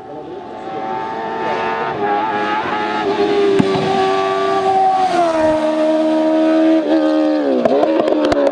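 Hillclimb race car's engine at high revs, growing louder over the first two seconds. Its pitch drops about five seconds in. Near the end the revs fall in quick dips, with sharp cracks.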